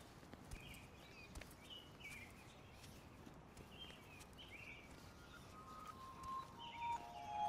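Birds chirping faintly, short chirps repeating every half second to a second, with a few faint ticks. Near the end soft music tones come in, one after another, stepping down in pitch.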